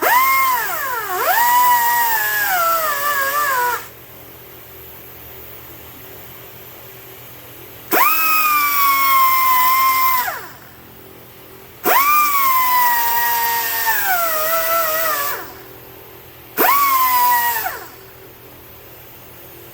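A small high-speed electric power tool run in four bursts, each one spinning up to a high whine that sags in pitch as it bears on the work and then winds down. It is being used on an engine crankshaft seal to clean it so the numbers on it can be read.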